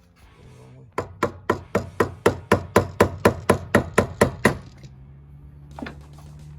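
A hammer striking a flathead screwdriver about fifteen times in a steady run, roughly four blows a second, to knock a truck fuel pump's locking ring loose.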